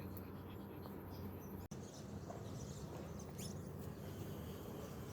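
Faint ambience: a steady low hum with a few faint, short, high chirps.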